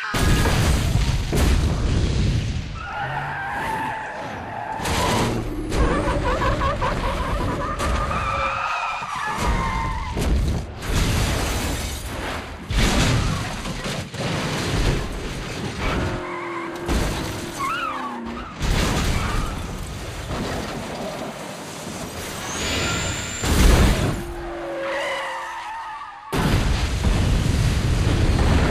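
Movie sound mix of a multi-vehicle highway pile-up: repeated car crashes and metal impacts, glass shattering and tyres skidding, with music underneath. Near the end a sudden loud explosion begins and keeps going.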